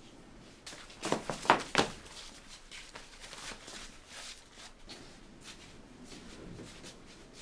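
A quick run of four or five sharp knocks about a second in, then faint shuffling noise in a small room.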